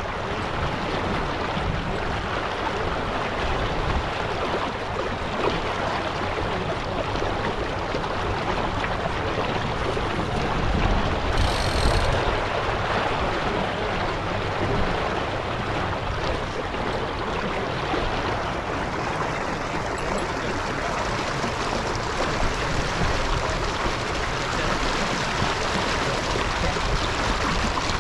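Steady rush of water along the hull of a J24 sailboat under way.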